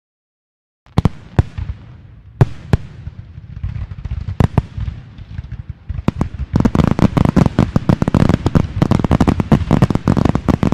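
Firecrackers going off, starting about a second in: a few separate sharp bangs, then from about six seconds in a dense, rapid run of cracks like a firecracker string.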